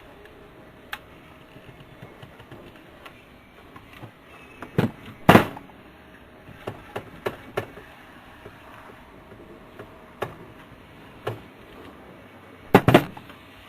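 Scattered small clicks and taps of hand tools and gauge parts being worked into an aircraft instrument panel, with two louder knocks, one about five seconds in and one near the end.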